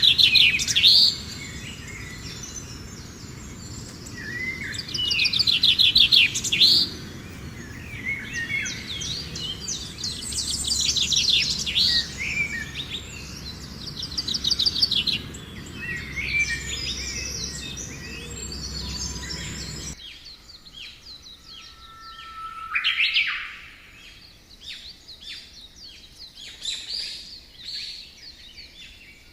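Rainforest birds singing and calling, with loud, rapid trilled phrases repeated every few seconds over a low background hum. About twenty seconds in the hum drops away abruptly, and quieter pulsed calls and a short rising call carry on.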